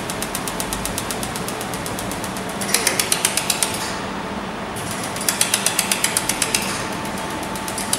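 Fiber laser welding machine in operation: a fast, even clicking at about ten a second over a steady machine hum, louder in two stretches of about a second each.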